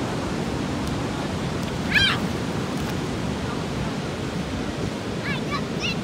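Large ocean waves breaking heavily in a steady rushing surf. A short high-pitched call cuts through about two seconds in, and a few more short calls come near the end.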